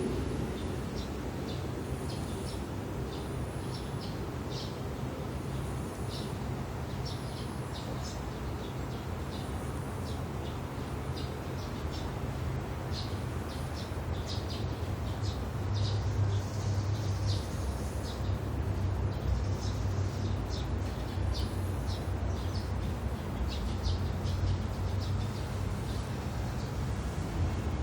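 Tabby cat snoring in its sleep: a low, steady rumble that grows a little louder about halfway through.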